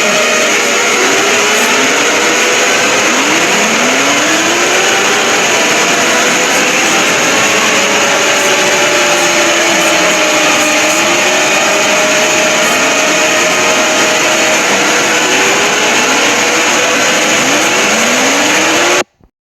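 Loud mock emergency-alert alarm: many overlapping siren tones sweeping upward again and again, with steady tones, over a harsh wall of noise. It cuts off suddenly near the end.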